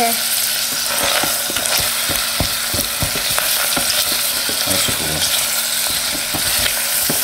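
Sliced onions sizzling in hot olive oil in an electric pressure cooker's inner pot on sauté mode, stirred with a spatula that scrapes and taps against the pot many times. The sizzle is a steady hiss.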